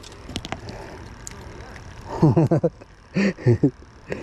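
A man's voice making two short wordless sounds past the middle, after a few light clicks and taps from handling the fishing line.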